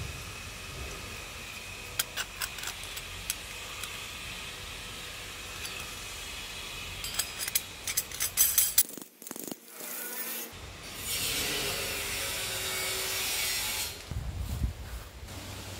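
A chrome threaded pipe fitting and a brass lock nut being handled: light clicks and clinks of metal on metal, with a rasping rub as the nut is worked along the thread, busiest around the middle. A steady hiss runs for about three seconds past the middle.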